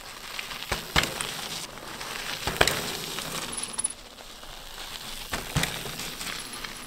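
Mountain bike rolling off small stone drops: tyres crunching over gravel, with several sharp thumps as the wheels come down, the loudest about two and a half seconds in. The thumps come from the wheels being pressed down firmly in a rolling press drop, the rear wheel driven down deliberately.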